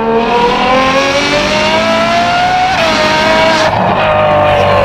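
Ferrari 812 Superfast's naturally aspirated 6.5-litre V12, through a Secret Apple exhaust, under hard acceleration. The revs climb for about three seconds, dip at an upshift, and a sharp crack follows just before four seconds in.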